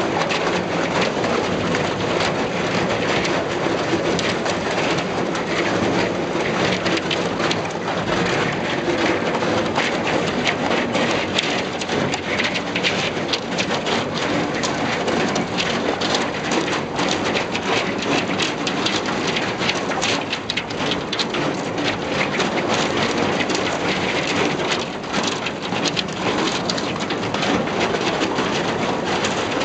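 Thin canal ice breaking against a narrowboat's steel hull as the boat pushes through it: a continuous dense crackling and tinkling of ice plates snapping and scraping along the side.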